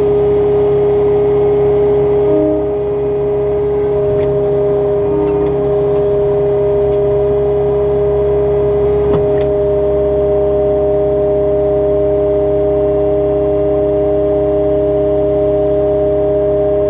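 Skid loader's diesel engine running at a steady speed, with a steady whine over the engine note.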